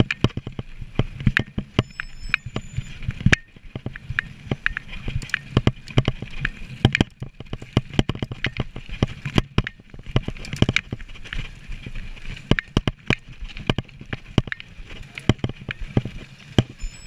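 Mountain bike ridden fast over a rough dirt trail: dense, irregular clicks and rattles as the bike jolts over bumps, over a steady rush of tyre and wind noise.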